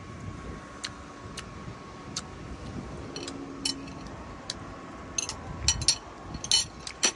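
A metal spoon clinking and tapping against ceramic plates and bowls during a meal: scattered light clicks, with a quick flurry of sharper clinks about five seconds in. A faint steady high-pitched hum runs underneath.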